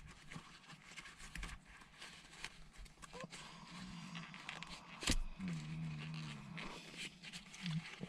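Suede gear gaiter and its plastic frame handled and folded inside out: faint rustling of the fabric and small plastic clicks, with one sharper click about five seconds in. A low hum follows for about a second and a half.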